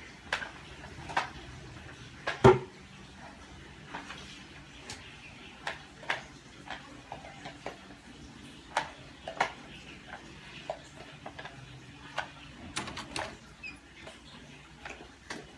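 Nail clipper cutting fingernails: a series of sharp, irregularly spaced clicks, the loudest about two and a half seconds in.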